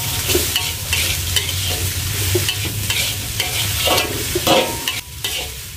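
Metal spatula scraping and tossing dried shrimp, chilies and tomato around a metal wok in repeated irregular strokes, with the food sizzling as it fries. A low steady hum runs underneath.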